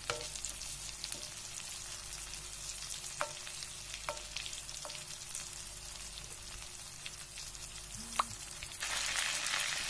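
Red fish fillets frying in foaming butter and sunflower oil: a steady sizzle, with a few light clinks of a metal spoon on the pan as the bubbling fat is spooned over the fish. The sizzle grows louder near the end.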